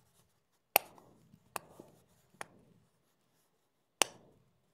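Silicone pop-it fidget toy being pressed bubble by bubble: four sharp pops, roughly a second apart, with a longer pause before the last.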